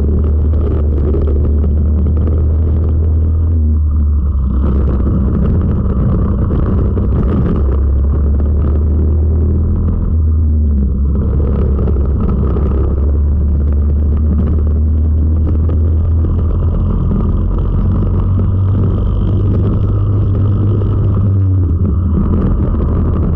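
Four-stroke racing kart engine running hard, heard from on board the kart, with its pitch dipping briefly three times: about four seconds in, near the middle, and near the end.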